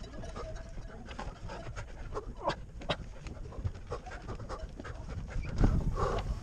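A runner panting hard, a run of short, quick breaths during a long mountain obstacle race. Near the end a louder low rumble comes in on the microphone.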